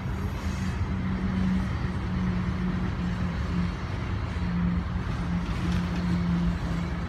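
Freight train of coal hopper cars rolling past, a steady rumble of steel wheels on the rails with a low hum that breaks off and resumes every second or so.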